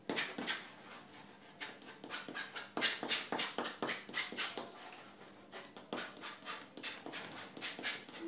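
Palette knife dabbing and scraping paint onto a stretched canvas in short, scratchy strokes, irregular at about three a second.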